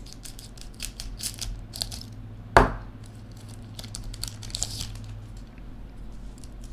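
A trading card pack's wrapper being torn open by hand and crinkled as the cards are pulled out, in short rustling bursts, with one sharp tap about two and a half seconds in.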